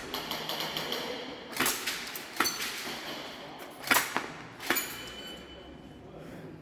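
Airsoft gun shots: four sharp cracks, spaced unevenly over a few seconds, with a faint ring after some of them.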